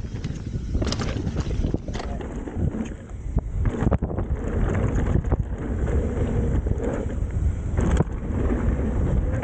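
Wind buffeting the camera's microphone as a mountain bike descends a rough trail, with the tyres rattling over dirt and rock and sharp knocks from the bike now and then.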